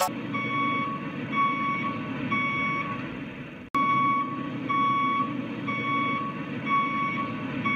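A vehicle reversing alarm beeping about once a second, each beep short and at one pitch, over a steady engine running. The sound drops out briefly about halfway through.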